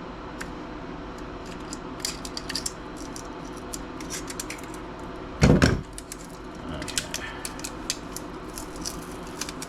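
Small clicks, taps and scrapes of a knife prying at a small electronics circuit board, with one loud thump about five and a half seconds in. A steady hum runs underneath.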